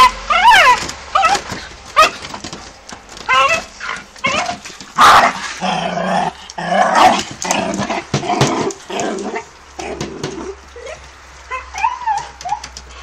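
Jagdterrier yelping and barking in a rapid, excited run of high yips, several of them falling sharply in pitch, with sharp knocks among them.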